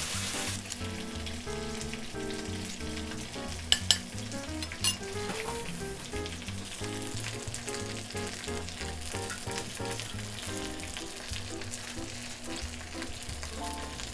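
Steady sizzling of oil in a hot frying pan, with a few sharp clinks of a metal palette knife against a tray and plate about four and five seconds in.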